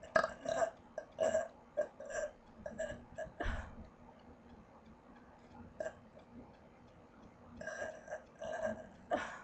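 A person burping over and over on purpose, a run of short burps. They come thick and fast for the first few seconds, pause, then start again near the end.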